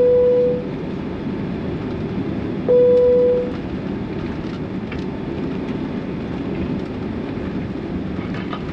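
Cabin chime of a taxiing Boeing 767 sounding twice, a single clear ding each time, the second about three seconds after the first. Under the chimes is the steady rumble of the jet's engines and cabin noise.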